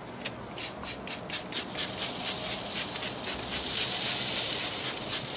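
Handheld trigger spray bottle spritzing apple cider vinegar onto a brisket on the smoker grate: a rapid run of short hissing squirts, about six a second, that merge into a longer, louder spray around four seconds in, then a few more single squirts near the end.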